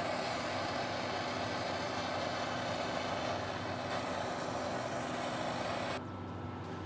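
Handheld gas torch burning with a steady hiss of flame as it lights wood pellets in a smoke tube; the hiss cuts off abruptly about six seconds in.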